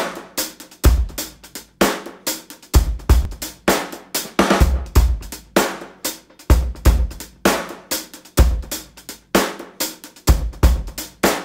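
Background music: a solo drum-kit groove with kick drum, snare and hi-hat keeping a steady beat.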